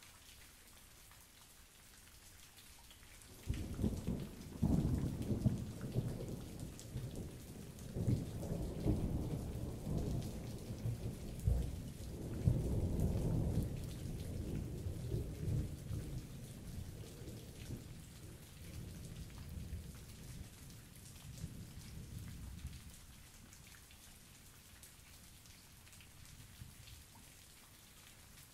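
Steady rain falling, with a long roll of thunder that breaks in suddenly about three and a half seconds in and rumbles on in several surges for some twenty seconds before fading away.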